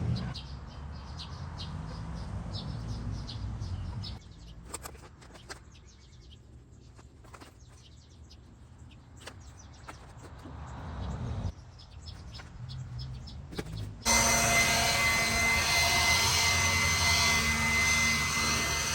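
Passing vehicles rising and fading, with birds chirping between them. About three-quarters of the way in, this cuts abruptly to a louder steady mechanical hum with a few steady whining tones.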